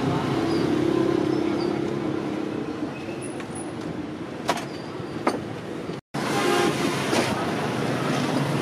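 Steady din of street traffic, with a low steady tone in the first couple of seconds and two sharp clicks around the middle. The sound drops out completely for a moment about six seconds in.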